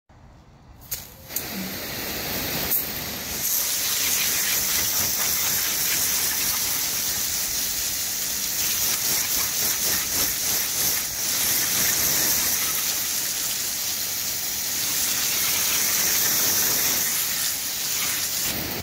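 Jet of water from a hose spraying onto a crystal-covered car grille and the turf around it, a steady hiss of spray. It starts about a second in with a couple of sharp clicks, grows fuller and hissier a few seconds later, and cuts off at the end.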